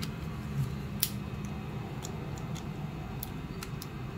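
Light handling clicks and taps as hands move a small 3D-printed plastic RC car chassis and fit its battery connector, about half a dozen scattered clicks, the sharpest about a second in, over a steady low hum.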